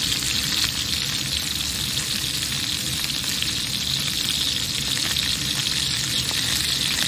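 Thick New York steaks sizzling steadily in a hot cast iron skillet as they fry, a continuous hiss with a fine crackle from the fat and juices in the pan.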